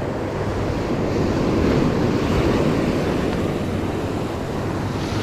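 Ocean surf washing onto the beach, a steady rush that swells louder about two seconds in, with wind buffeting the microphone.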